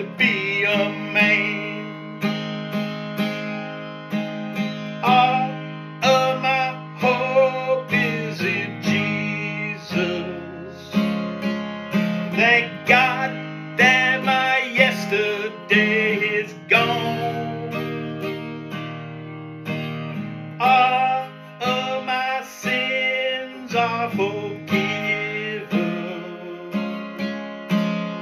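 Acoustic guitar strummed in a steady rhythm, with a man's voice singing along over it.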